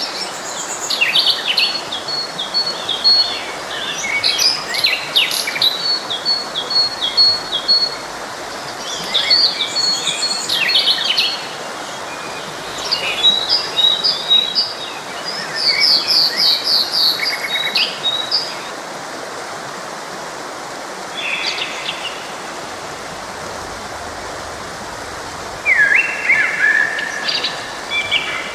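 Several songbirds singing in overlapping phrases of quick chirps, trills and repeated high notes, busiest over the first eighteen seconds or so, with a few more phrases later on. A stream runs steadily underneath.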